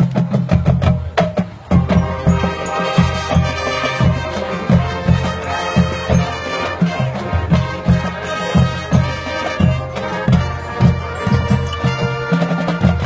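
High school marching band playing its field show: brass and winds sounding sustained chords over a steady drumline beat.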